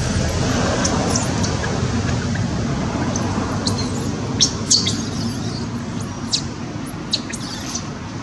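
Small bird calling: a run of thin, very high chirps, each a quick sweep up and down, repeated about a dozen times and loudest about halfway through. A steady low rumble runs underneath.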